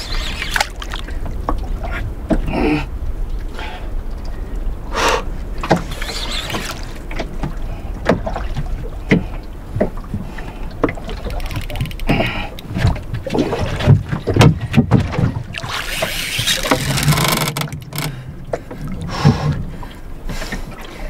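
Water slapping and splashing against the hull of a small boat, with scattered sharp knocks, over a low steady rumble; about two-thirds of the way through comes a louder hiss lasting a second or two.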